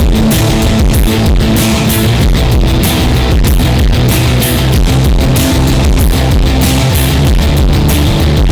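Loud background rock music with electric guitar and a steady beat.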